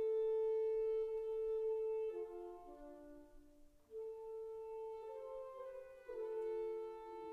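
Slow classical music of long held chords on wind instruments. The sound thins almost to nothing about three and a half seconds in, then a new phrase of held chords begins.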